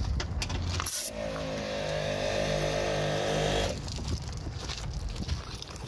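An air chuck hissing sharply as it goes onto a tire valve about a second in, then compressed air from an ARB twin compressor flowing through the hose into the tire with a fast, even pulsing for about two and a half seconds before cutting off.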